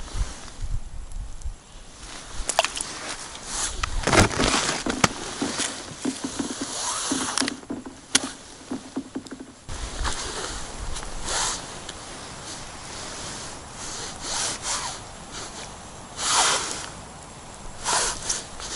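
Scattered rustles, scrapes and sharp clicks of an ice angler handling a winter rod and gear, with clothing rustling, on snowy ice; the louder rustling bursts come near the end.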